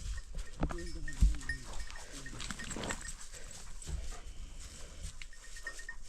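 An animal calling in short cries. The first, about a second in, falls in pitch, and a few weaker calls follow, with faint high chirping throughout.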